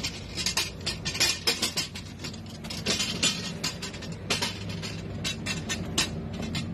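Background music: a steady low tone under sharp, irregularly spaced percussive hits.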